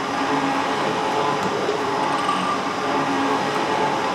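Metal shaper running, its ram stroking back and forth while the single-point tool cuts steel on each forward stroke. A steady mechanical clatter with a slow repeating cycle.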